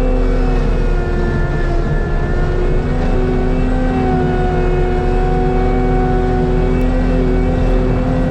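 Heavy diesel machine running steadily under load with its hydraulic forestry mulcher head spinning: a low engine rumble under several steady whining tones, dipping slightly in pitch now and then.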